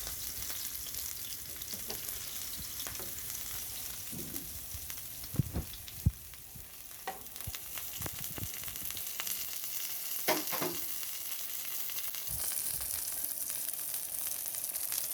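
Salmon fillet searing in hot oil in a frying pan, a steady sizzle and crackle, with a couple of sharp knocks about halfway through.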